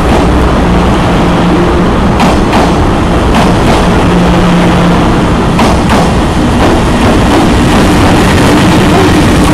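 24 series blue-train sleeper coaches rolling past close by: a loud, steady rumble with a few short wheel clicks and a low hum that comes and goes.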